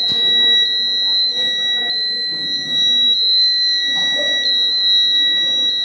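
Electronic buzzer sounding one continuous high-pitched tone, with brief dips roughly every two-thirds of a second.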